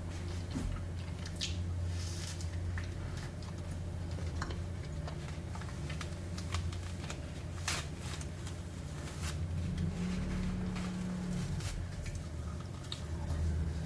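Close-miked ASMR eating sounds of soft dessert: scattered soft chewing, squishing and small mouth clicks over a steady low hum.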